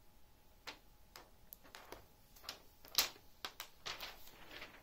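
Protective plastic film being peeled off a laptop screen and handled, giving a string of faint, irregular crackles and clicks, the sharpest about three seconds in.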